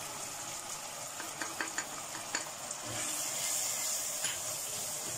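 Onions and tomato paste frying in oil in a steel pot, sizzling steadily as ground spices are stirred in. A few light clicks of a wooden spatula against the pot come about halfway through, and the sizzle grows a little louder about three seconds in.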